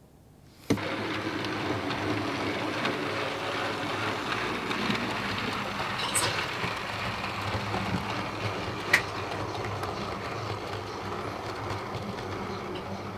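OO gauge model train running along the layout's track: the tank locomotive's small motor and the coaches' wheels rolling on the rails, a steady running noise that starts suddenly about a second in, with a faint click or two partway through.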